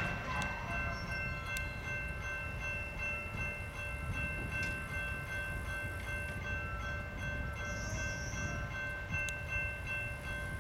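Steady low rumble of a distant freight train, with several steady high-pitched tones held above it and a few faint clicks.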